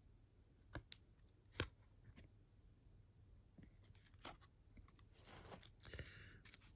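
Quiet handling of trading cards: a few light taps and clicks, then a soft rustle near the end.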